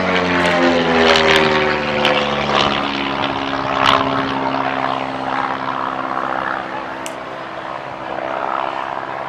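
Midget Mustang MM-1 single-engine propeller plane flying past, its engine note dropping in pitch over the first couple of seconds as it goes by, then running steadily and slowly fading as it climbs away. A few sharp clicks are heard over it, the loudest about four seconds in.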